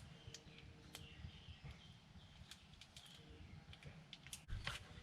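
Near silence: faint scattered clicks and light handling noise from the parts of a tyre plug repair kit being handled, with a few louder clicks just before the end.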